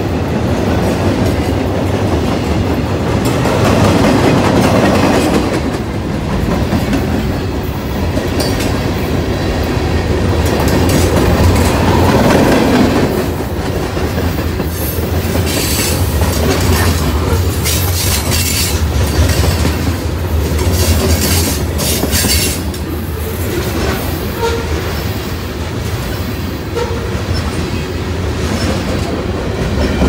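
Freight cars of a mixed manifest train (gondolas, covered hoppers and boxcars) rolling past at close range. The wheels rumble steadily and clack over the rail joints. A stretch of sharper, high-pitched clatter comes through in the middle.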